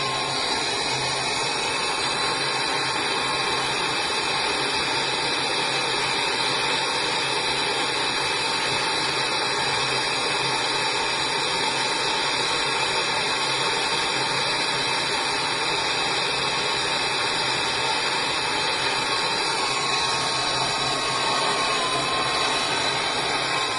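Gas torch burning with a steady, unbroken hiss while copper tubes are brazed with borax flux.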